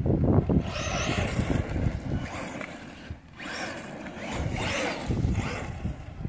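Redcat Shredder XT RC truck speeding and sliding on loose dirt, its motor and tyres surging in several bursts of throttle with a rasping, hissy sound. Wind rumble on the microphone lies underneath.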